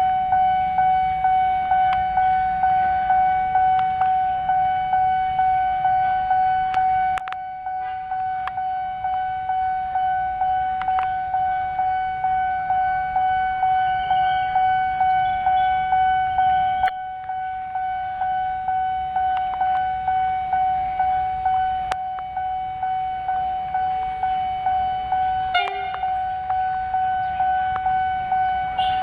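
Railway level-crossing warning bell ringing, one steady ding repeated about one and a half times a second.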